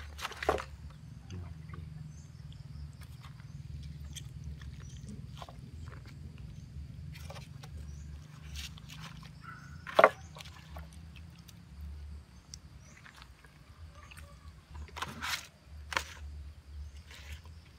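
Machete blade cutting and scraping a catfish on banana leaves over a board: scattered sharp knocks and scrapes, the loudest about ten seconds in and a few more near the end, over a low steady rumble.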